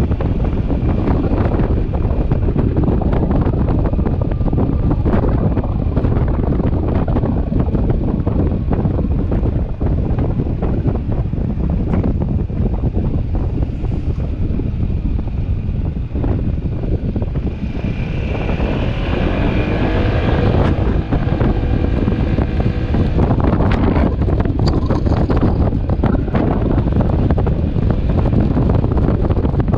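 Wind buffeting the microphone of a camera on a moving motorcycle, a steady loud rush mixed with engine and road noise. A pitched engine note stands out briefly about two-thirds of the way through.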